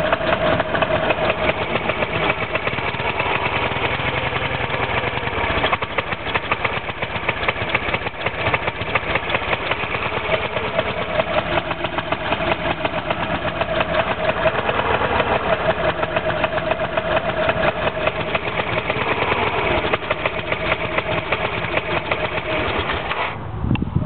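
1986 Honda Elite 250 scooter's single-cylinder four-stroke engine idling steadily, with a rapid, even firing pulse.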